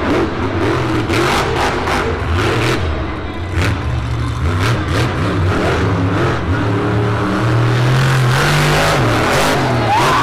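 Monster truck's supercharged V8 engine revving hard, its pitch rising and falling as the throttle is worked, climbing to a higher, held note about eight seconds in.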